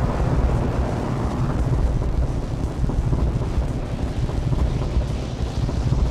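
Noisy, rumbling wash of sound from instruments processed through delay and tape-echo effects pedals, heavy in the low end.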